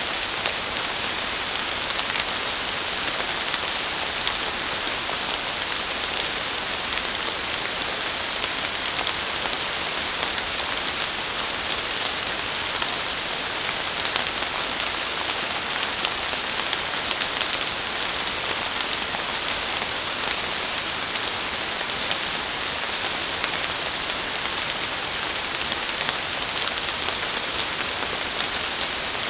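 Steady rain falling on forest leaves: an even hiss of rainfall with many individual drops ticking sharply on the wet foliage.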